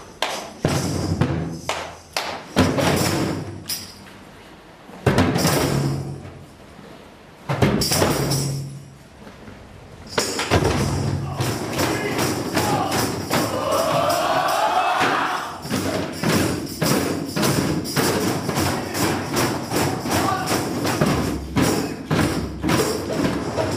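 A group playing hand drums and other percussion together, tambourine among them. Loose, scattered strikes with short pauses at first, then about ten seconds in the group settles into a steady shared beat.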